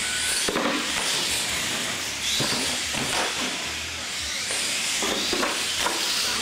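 Electric motors and gearboxes of R/C monster trucks whining as they race, the high-pitched whine rising and falling with the throttle, with a few knocks and clatters from the trucks.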